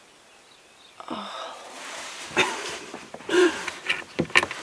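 About a second of near silence, then breathing and laughing breaths mixed with a few small sharp clicks and knocks as plastic water-pipe fittings are handled.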